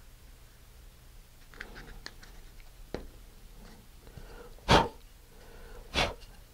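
Two short, loud puffs of breath about a second apart, blown into the plastic nose-cone transition to clear out sanding shavings. Faint clicks and rustling from handling the parts come before them.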